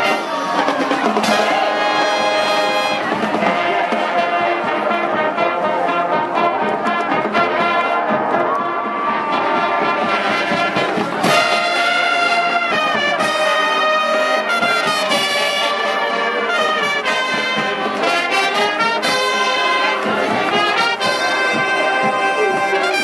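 Marching band playing: a full brass section of trumpets, trombones and sousaphones with drums, sounding held and changing chords without a break.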